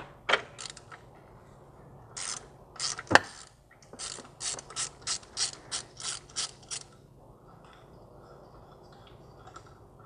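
Socket ratchet clicking as it loosens a 13 mm fastener on the gear shifter bracket, a regular run of clicks at about three a second that stops about seven seconds in.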